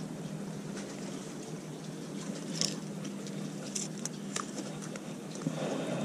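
Steady low hum under a soft outdoor noise bed, with a few small sharp clicks a little before the middle and again after it.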